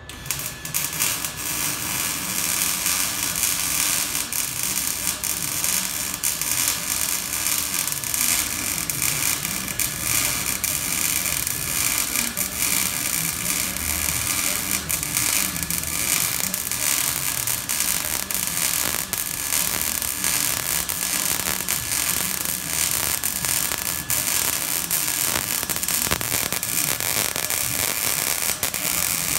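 Electric arc welding: a loud, steady crackle and sizzle from the welding arc as a continuous bead is laid, starting abruptly as the arc is struck.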